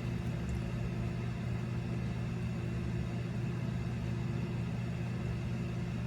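Steady low machine hum, even and unchanging, with no other sound.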